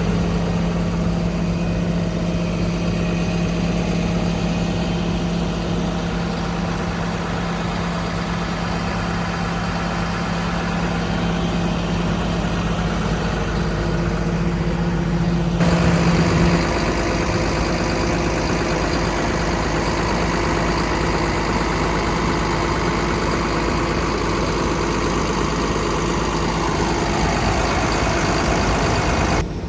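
Diesel engine of a Komatsu PC290LC-11 excavator running steadily at idle. About halfway through, the sound changes abruptly and a steady low hum drops out, and near the end a tone falls in pitch.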